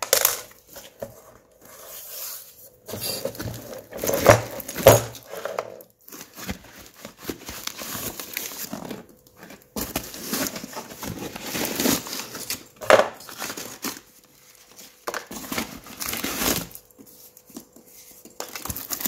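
Packing paper and wrapping being crumpled and torn off a parcel by hand, in irregular bursts of rustling and crinkling.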